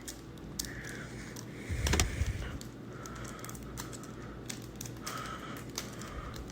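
Handling noises from card packs and packaging being picked up and moved by hand: scattered light clicks and taps, with a louder bump about two seconds in.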